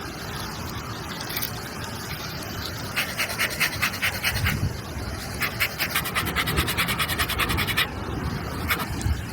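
Rapid rhythmic scraping, about eight strokes a second, in two runs of a couple of seconds each.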